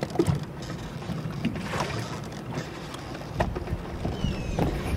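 Wind buffeting the microphone on an open fishing boat, over water lapping at the hull, with a few light knocks.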